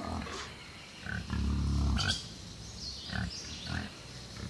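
Wild boars grunting: several short, low grunts and one longer, louder grunt about a second and a half in.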